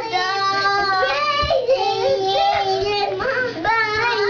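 Young child singing in a high voice, a loose, wordless tune of several long held notes with short breaks between them.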